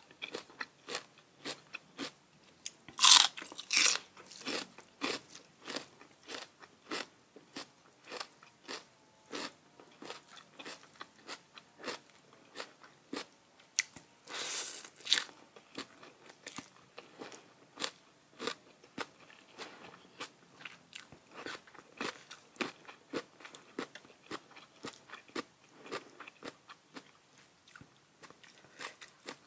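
Close-miked chewing and biting of food: steady wet clicks and crackles, with two louder crunching bites, one about three seconds in and one about halfway through.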